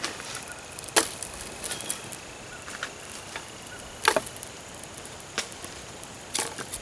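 Newly lit campfire of small sticks and kindling crackling, with sharp pops about a second in, about four seconds in and near the end, and lighter ticks between.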